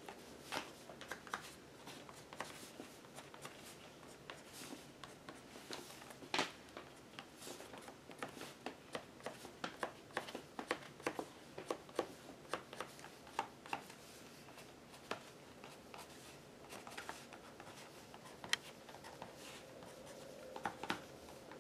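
Stabilo All charcoal pencil making quick, short strokes on a paper journal page: faint, irregular scratching and light tapping of the tip.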